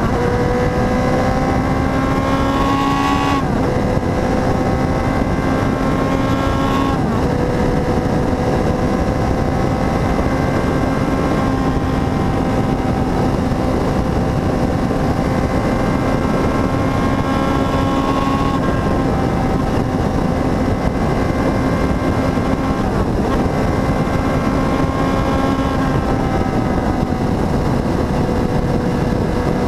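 Motorcycle engine running under way, heard from a camera mounted on the bike, over a steady rush of noise. Its pitch climbs slowly and drops at gear changes about three and seven seconds in, then holds fairly steady, dipping slightly twice later on.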